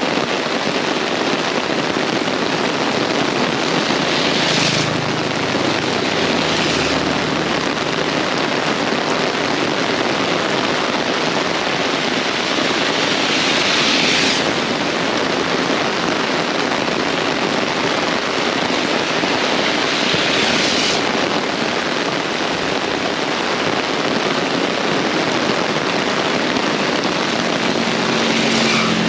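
Very heavy rain pouring down steadily in strong wind, swelling in several brief surges.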